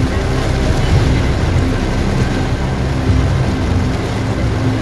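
Torrential rain drumming on the car's roof and windshield, heard inside the cabin as a loud, dense, steady hiss over the low hum of the car's engine and tyres on the flooded road.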